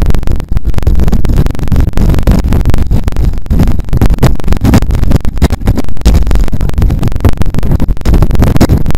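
Wind buffeting the microphone of a camera on a road bike racing at about 25 mph: a loud, continuous, ragged low rumble with crackle, close to clipping.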